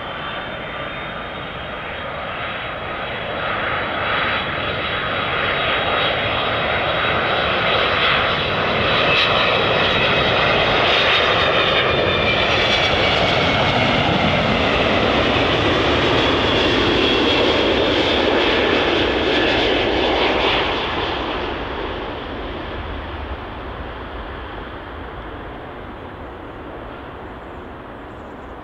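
Delta Airbus A330-300 on final approach passing close by: the rushing noise of its twin turbofan engines, with a high whine, swells to a long peak in the middle. The whine slides down in pitch as the jet passes, then the noise fades away.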